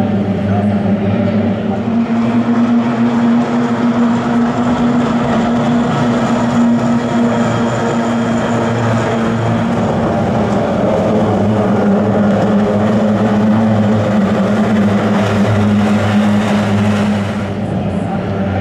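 Kyotei racing boats' two-stroke outboard engines running as the boats race, a loud steady buzzing drone that dips slightly near the end.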